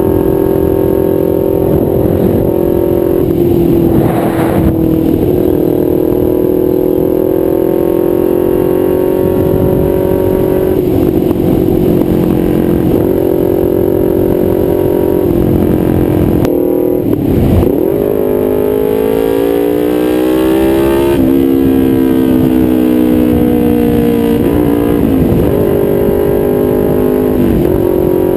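2012 Kawasaki Ninja 250R's parallel-twin running through a nearly straight-piped DanMoto XG-1 exhaust at a steady cruise. The exhaust note holds steady with brief dips as the throttle is eased off, climbs slowly, then drops abruptly about two-thirds of the way through, as on an upshift.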